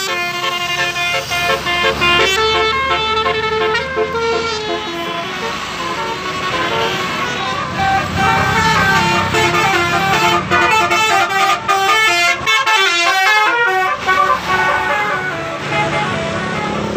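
Indonesian bus "telolet" horn: a set of musical air horns playing quick stepping melodies of changing notes, sounding almost without a break, over the running of the bus.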